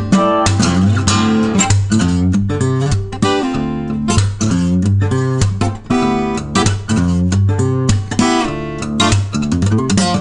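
Acoustic guitar music, with quick plucked and strummed notes over low bass notes.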